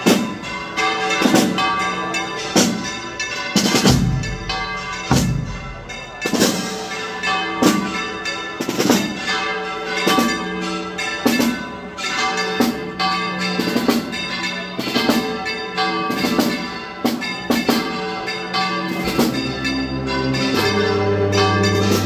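Church bells swung full circle (volteo), clanging rapidly and irregularly with long ringing overtones. Near the end, sustained musical notes come in under the bells.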